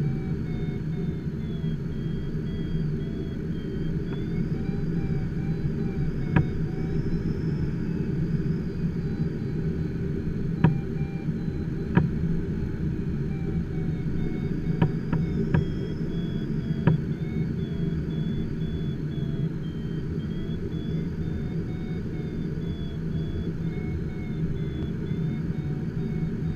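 Steady rumble of airflow in the cockpit of an HK-36 Dimona motor glider gliding with its engine stopped and the propeller standing still. Over it runs a faint, fast electronic beeping that slowly rises and falls in pitch, and a few sharp clicks come in the middle.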